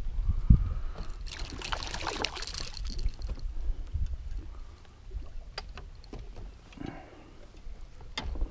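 A hooked fish splashing and thrashing at the surface beside the boat as it is brought in on the line, with a burst of splashing about a second and a half in and a sharp splash near the end, over a steady low rumble.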